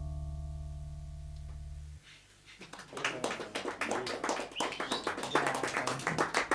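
A final sustained keyboard chord rings out at the end of a jazz ballad and stops about two seconds in. A moment later a small audience starts applauding, and the clapping grows louder.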